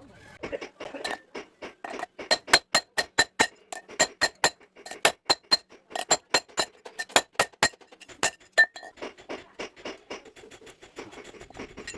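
Hammer striking hot steel on an anvil in a quick run of ringing blows, several a second, forging a knife blade; the blows stop about nine seconds in.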